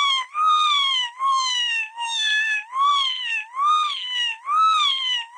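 A very high-pitched voice wailing on and on with hardly a break, its pitch swelling and dipping about once a second.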